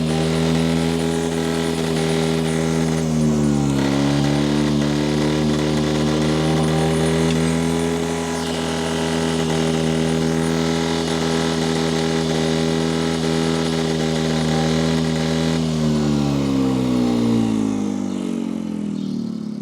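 Gasoline pony (starting) motor of a John Deere 720 diesel tractor running at a steady speed, with a brief dip in speed about three seconds in. Near the end it slows and dies away as it is shut off. It is running again after a no-start fault was found and fixed, without choke.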